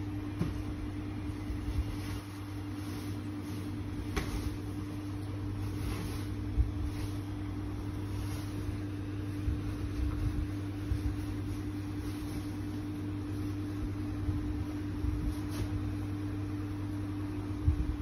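Steady low mechanical hum, like a room appliance or fan running, with a few light taps and clicks scattered through.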